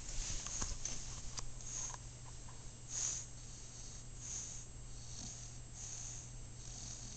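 English bulldog snoring and snuffling in her sleep, one noisy breath about every second.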